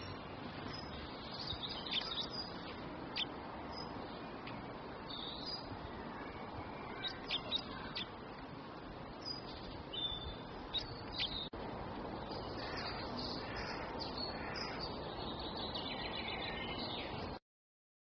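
Small songbirds chirping and calling in short, high, sharp notes over a steady background hiss. There is a brief dropout partway through, and the sound cuts off abruptly just before the end.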